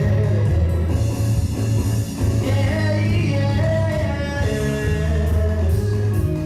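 Live gospel band playing between sung lines: steady bass and electric guitar carrying the song, with some singing or ad-libbed vocal over it.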